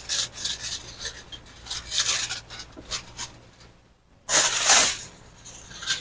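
Aluminium foil crinkling and rustling as it is folded and crimped around a pan by hand. A brief lull comes about two-thirds of the way through, followed by the loudest crumple of the foil.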